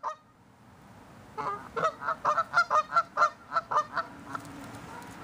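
Geese honking: a quick run of about a dozen short honks, starting a little over a second in and stopping a little after four seconds, over a steady background hiss.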